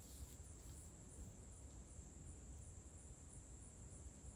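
Faint chorus of insects in summer woodland: one high, steady trill with a regular pulsing just above it, over a low rumble.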